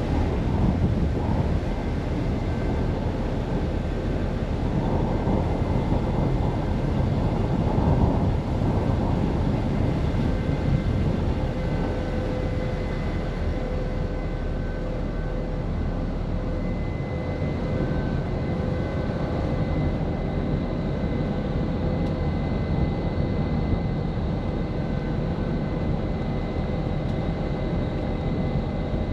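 Passenger ferry's engines running steadily under way: a constant low drone carrying a few held steady tones over a rush of noise.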